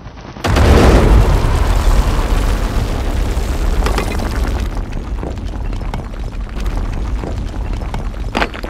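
Explosion sound effect: a sudden loud blast about half a second in, followed by a long low rumble that slowly fades, with scattered crackles and a sharper crack near the end.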